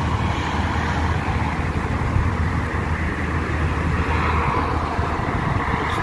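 Steady rumble of road traffic on a nearby road, with no distinct events.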